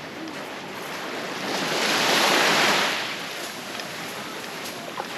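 Ocean surf on a beach, with one wave breaking and washing up that swells to a peak about two seconds in and then fades.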